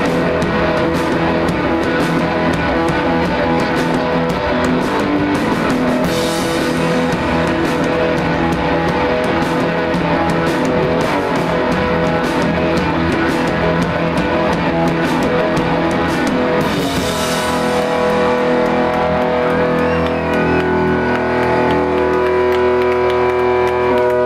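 A live rock band playing loud, with electric guitar and a drum kit. Cymbal crashes come about six and seventeen seconds in. In the last few seconds the playing gives way to steady, held guitar notes ringing out.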